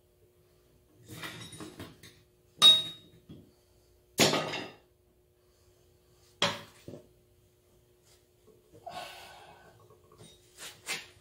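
Metal parts of a tractor's front spindle assembly being handled: scraping and rattling, with three sharp metallic knocks, the first ringing briefly.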